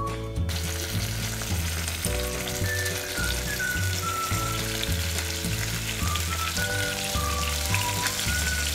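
Chopped garlic frying in olive oil, sizzling as fresh tomato juice drips into the pan from a mesh strainer; the sizzle comes in about half a second in. Background music with a bass line and a melody plays throughout.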